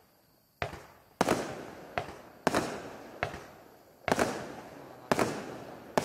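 A 19-shot consumer firework cake firing shot after shot: about eight sharp reports, roughly one every three-quarters of a second, each ringing out briefly before the next.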